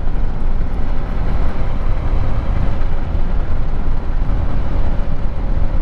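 KTM 390 Adventure single-cylinder motorcycle being ridden at a steady pace, its engine running under a constant rush of wind and road noise on the rider's microphone.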